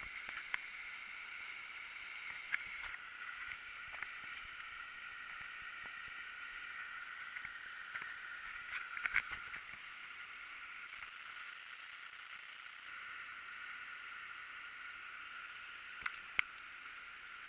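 Waterfall on the Isar river, rushing water making a steady hiss, with a few short sharp clicks or splashes scattered through it.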